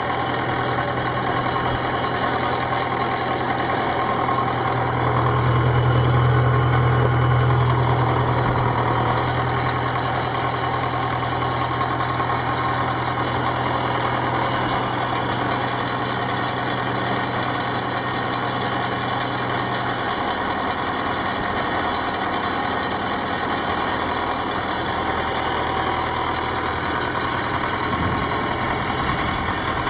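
Farm tractor engine idling steadily while hooked to a tractor-mounted post driver. It runs louder for about four seconds starting some five seconds in, and its low hum drops away about twenty seconds in.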